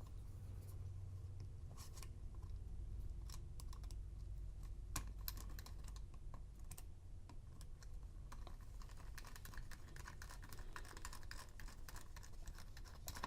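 Faint, scattered small clicks and scratches of metal tools and lock parts being handled, coming more often in the second half.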